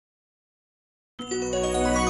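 Dead silence for about a second, then a short outro music jingle for the like-and-subscribe end screen starts suddenly: a sustained chord over a deep bass.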